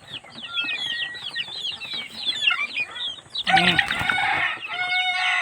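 Philippine native chickens: juvenile chicks keep up rapid high peeping and chirping. About three and a half seconds in, a louder, lower rooster crow cuts in, breaks off, and resumes near the end.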